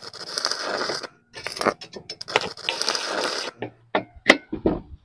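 Electric arc welding crackling in two stretches, about three seconds in all, as small wheels are welded onto a steel frame. Then several sharp metal knocks, one with a brief ring.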